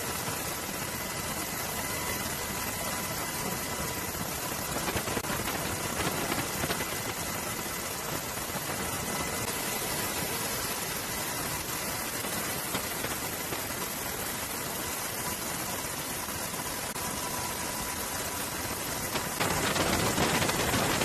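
Steady engine drone under an even rushing noise, with a faint steady whine. It grows louder near the end.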